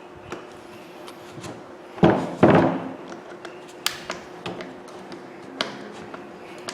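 Two loud knocks close together about two seconds in, with a short ring after them, then scattered light clicks and taps as power-tool parts are handled during reassembly.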